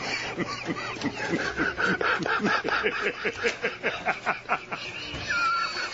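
Several people laughing uncontrollably in quick, repeated bursts of giggling.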